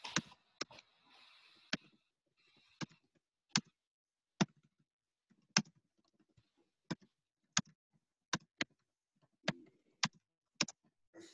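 Slow, uneven typing on a computer keyboard: about fourteen single sharp key clicks spaced roughly half a second to a second apart.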